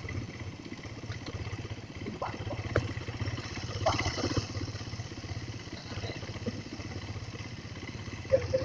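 Suzuki Satria FU 150's single-cylinder four-stroke engine idling steadily, with a few light clicks over it, left running as a test for oil seeping.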